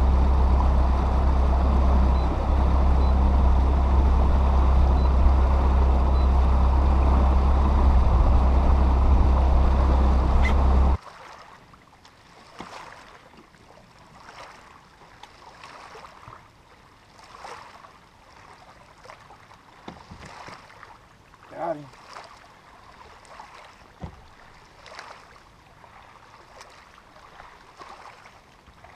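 Bass boat's outboard motor running at speed, a loud steady drone with rushing water and wind noise, which cuts off abruptly about eleven seconds in. The rest is quiet, with faint knocks and small splashes from fishing off the front deck.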